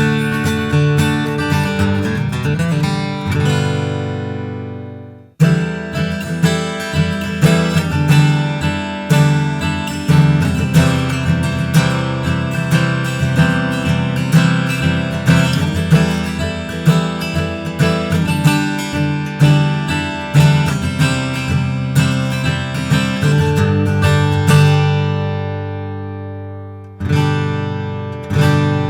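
Gibson Western Classic Prewar 200, a J-200 jumbo acoustic guitar with solid rosewood back and sides, being played. A chord rings and fades out; after a brief break about five seconds in, steady rhythmic strumming follows, ending with a chord left ringing and two last strums near the end.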